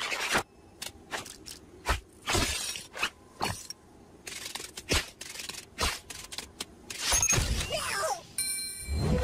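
Cartoon sound effects: a run of sharp clicks and knocks at uneven intervals, about ten in all, with a short noisy clatter about two and a half seconds in and a longer sweeping squeal about seven seconds in.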